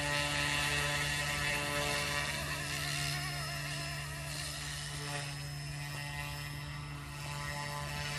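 Goosky S2 micro RC helicopter hovering: a steady buzzing whine from its electric motors and spinning rotors. A few seconds in the pitch wavers as the helicopter drifts sideways.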